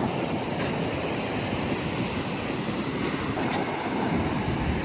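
Ocean surf with wind on the microphone: a steady rushing noise.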